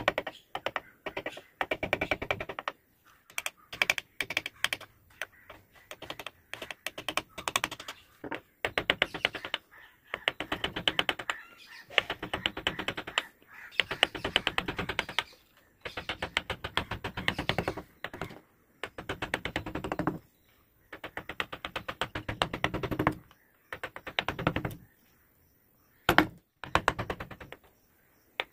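Carving chisel pushed by hand through wood, each cut a rapid crackling run of small clicks lasting a second or two, repeated stroke after stroke with short pauses between. One sharper click sounds near the end.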